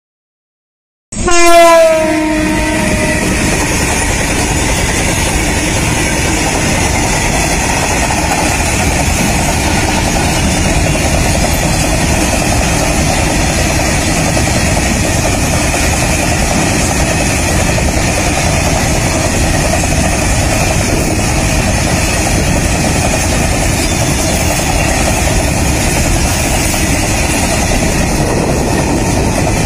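A locomotive horn sounds for about a second and a half, starting about a second in. After it, a long loaded freight train of open steel wagons rolls steadily past with continuous wheel-on-rail noise.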